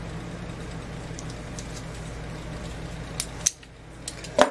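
Small metal clicks of locking pliers handling a spark plug held in a steel bench vise, ending in a sharp metallic clink near the end, over a steady low hum that drops away shortly before it.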